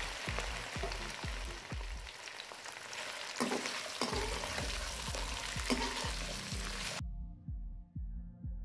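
Cut okra sizzling as it fries in hot oil in a metal pan, stirred with a slotted steel spatula, over background music with a steady beat. The sizzle cuts off suddenly about seven seconds in, leaving only the music.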